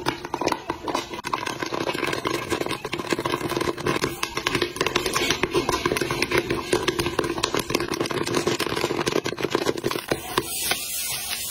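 Popcorn kernels popping thick and fast inside a glass-lidded wok: a dense, unbroken run of sharp pops.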